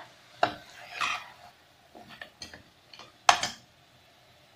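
Metal spatula scraping and knocking against an aluminium pressure-cooker pot while stirring meat and masala. There are a few scattered clinks, with the loudest knock a little over three seconds in.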